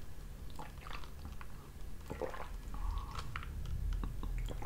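Soft mouth sounds of a man drinking iced tea from a plastic cup: sips and swallows with small wet clicks.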